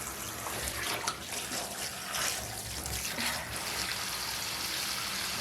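Cold water running into a bathtub and splashing over a soaked fleece cage liner as it is rinsed, a steady rush with small splashes.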